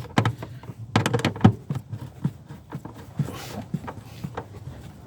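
Irregular small clicks and knocks of hand work on a car rear light unit as its fixing nuts are hand-tightened, busiest in the first second or so.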